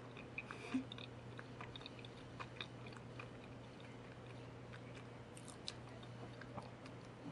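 Faint chewing of a soft-baked whole-grain chocolate fudge-filled bar, with small mouth clicks scattered through it; the loudest comes under a second in.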